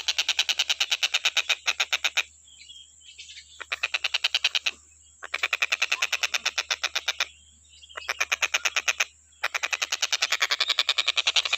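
A tengkek buto, a kingfisher, calling in a fast rattling chatter of about nine notes a second, in runs broken by short pauses, then going on steadily near the end.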